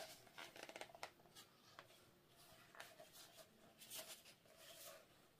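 Faint crackling and rustling of plastic as gloved hands squeeze a plastic bottle of black acrylic paint over a canvas, with a small click at the start and a cluster of crinkles about four seconds in.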